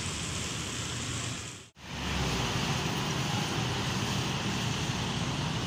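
Road traffic: cars and motorcycles passing on a wet street. The sound cuts out sharply for a moment about two seconds in, then carries on slightly louder.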